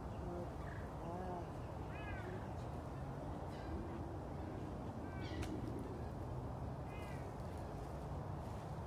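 A cat meowing: about five short calls that rise and fall, spread through a few seconds, over a steady low rumble.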